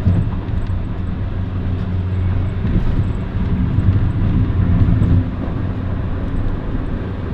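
Car driving at highway speed up a hill, heard from inside the cabin: a steady low engine and road rumble that swells for a couple of seconds about halfway through, then eases.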